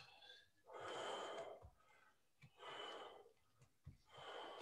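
A man breathing audibly: three long breaths, each about a second, spaced about a second and a half apart.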